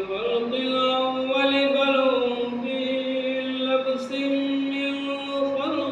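A man reciting the Quran in melodic tajweed style, drawing out long held notes on one pitch with a few slow steps up and down, and a rise near the end.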